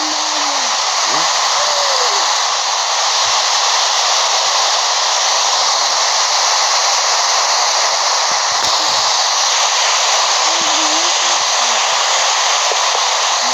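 Loud, steady rushing hiss that does not change, with faint high-pitched voices underneath near the start and again about ten seconds in.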